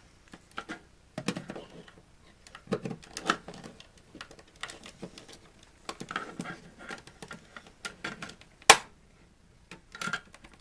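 Plastic housing of a TV antenna unit being handled and pried at to get the back cover off, giving irregular clicks and knocks of plastic, with one sharp loud click near the end; the cover is still held by something.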